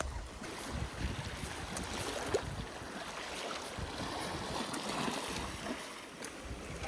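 Wind rumbling on the microphone in gusts, over small waves washing against a rocky sea shore.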